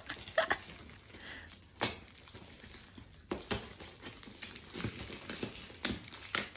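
Clear plastic film wrapped around a cardboard parcel crinkling and tearing as it is pulled open by hand, with a few sharp crackles scattered through.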